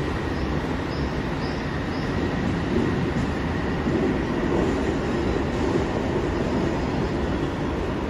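Odakyu electric commuter train pulling out of an underground station platform and running off down the track. Its running noise is steady and grows a little louder around the middle.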